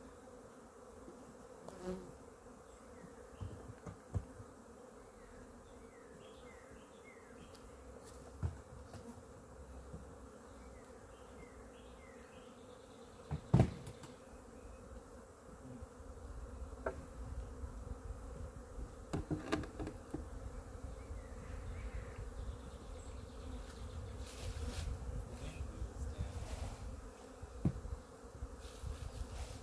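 Honey bees buzzing steadily around an open hive, with scattered knocks and clicks. The loudest is a single sharp knock about halfway through.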